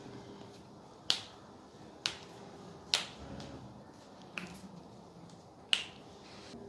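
Joint cavitation pops from the patient's wrist and finger joints as the chiropractor adjusts her hand: five sharp cracks, about a second or so apart.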